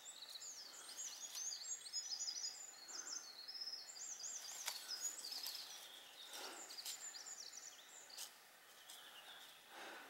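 Small songbirds singing: quick, high warbling and trilling phrases overlapping one another, thicker in the first half and thinning out later, with a few faint clicks and rustles.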